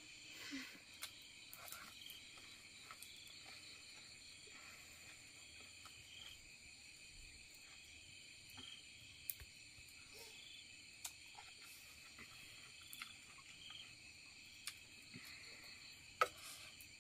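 A faint, steady chorus of forest insects, high and slightly pulsing, with a few sharp clicks of chopsticks against a ceramic bowl, the loudest near the end.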